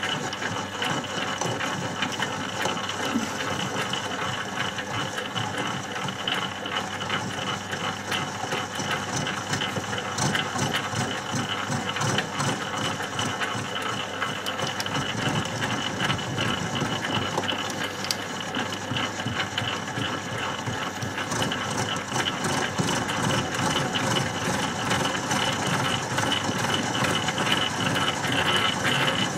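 Milling machine running at a slow spindle speed of about 150 rpm, its motor and spindle drive going steadily as the cutter takes a cut in a steel workpiece.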